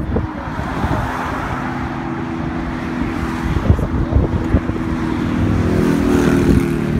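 Road traffic: a vehicle engine running steadily with a low hum, mixed with an uneven, gusty low rumble on the microphone.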